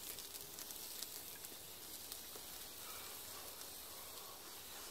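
Bratwurst sizzling faintly on a charcoal grill: a steady low hiss with scattered small crackles.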